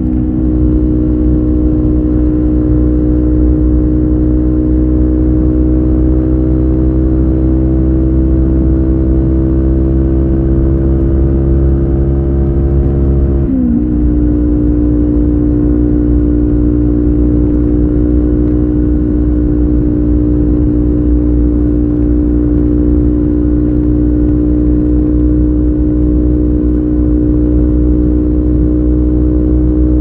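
Kawasaki Ninja 400's parallel-twin engine through an Akrapovic carbon slip-on exhaust without its dB killer. It pulls steadily with its note slowly rising, drops in pitch at an upshift about halfway through, then holds an even cruising note.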